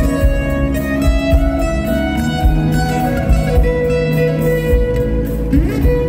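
Live band playing an instrumental passage: strummed acoustic guitar over a steady drum beat, with long held melody notes on top.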